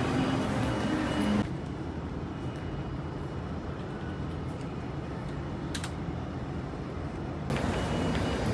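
City street traffic noise: a steady low rumble of passing vehicles. It drops abruptly quieter about a second and a half in and comes back up near the end.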